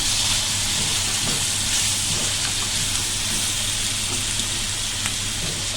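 Onions, tomatoes and green chillies frying in hot oil in a karahi, with a steady sizzle at the stage where tomato puree goes into the masala.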